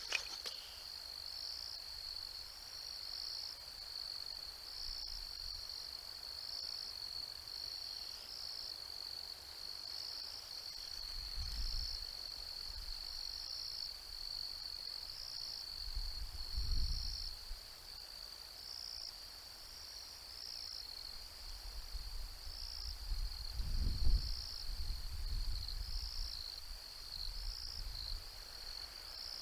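Crickets chirping in a steady high trill, with a louder chirp pulsing about once a second. A few low rumbles come and go, the strongest near the middle and about two-thirds of the way through.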